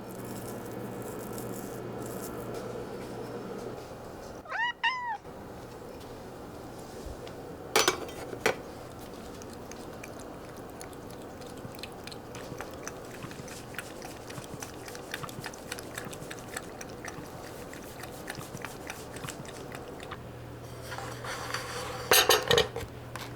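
A cat meows once, a short arching call about five seconds in. Around it come sharp clicks and light taps, a cluster of them near the end, over a steady low hum.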